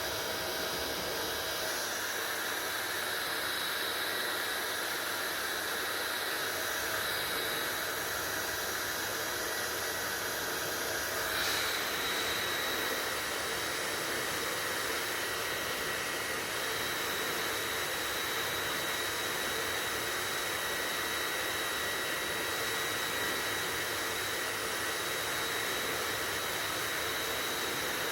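Hair dryer running steadily: an even rush of blown air with a thin high whine over it, which shifts slightly about eleven seconds in.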